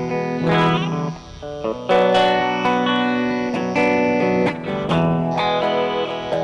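Electric guitar played through effects, chords struck and left to ring, a new chord about every second with a brief drop near the start.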